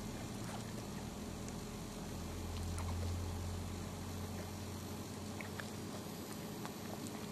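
Faint, scattered small wet clicks and smacks from a mother dog licking and nuzzling her newborn puppies, over a steady low hum that swells in the middle and then fades.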